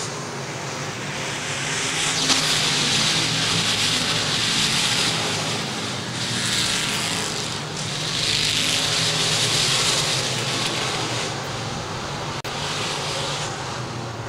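A field of crate late model dirt-track race cars running their V8 engines at racing speed. The engine noise swells and fades twice as the pack comes around and goes by.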